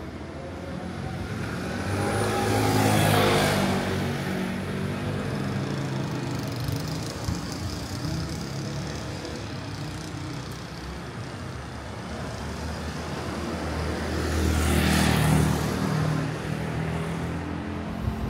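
City street traffic with two road vehicles passing close by, the first about three seconds in and the second around fifteen seconds, each swelling up and fading away.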